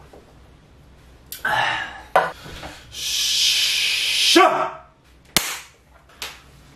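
A man's wordless vocal noises: a short cry, then a long breathy exhale like a hiss ending in a cry that falls in pitch. A single sharp smack follows about five seconds in.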